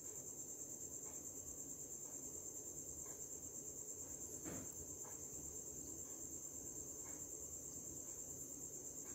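Faint, steady high-pitched insect trill, pulsing evenly several times a second, with a few soft ticks and one slightly louder knock about halfway through.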